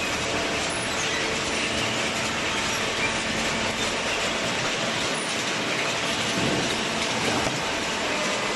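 Machinery running: a steady, dense mechanical noise with a faint hum, holding the same level throughout.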